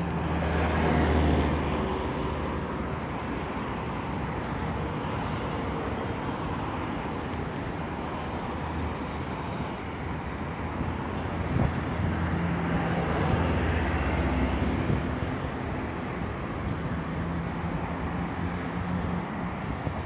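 Road traffic on a seafront road: a continuous rush of passing cars, with engine hum swelling as vehicles go by, once about a second in and again around twelve to fifteen seconds in.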